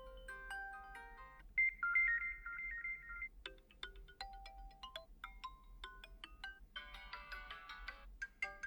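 POCO X5 Pro default ringtones playing one after another: short electronic melodies of bell-like notes. About a second and a half in, a louder high two-note tone comes in. It gives way to sparse single notes, and then to a dense run of chords near the end.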